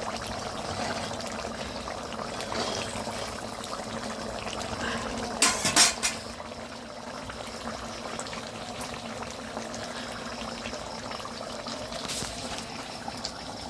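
A pot of food bubbling steadily as it cooks, with a brief loud clatter about five and a half seconds in.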